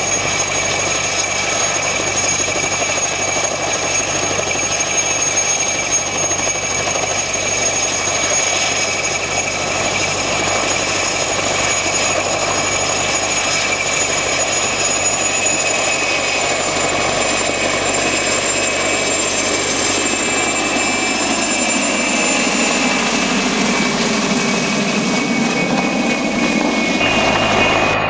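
Mil Mi-2 helicopter hovering low with a steady whine from its twin turboshaft engines over the thrum of the main rotor. Over the last several seconds its sound sweeps and shifts as the helicopter moves.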